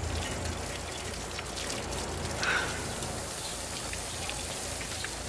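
Garden hose spraying water onto a steaming barbecue grill, a steady patter of falling water.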